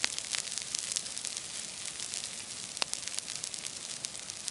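Open wood fire burning hot, with a steady hiss and frequent sharp crackles and pops. The sharpest pop comes a little under three seconds in.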